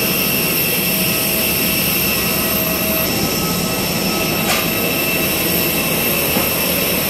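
Jet airliner's turbine running steadily on the apron, a constant rush with a high whine held at several pitches. A brief knock about four and a half seconds in.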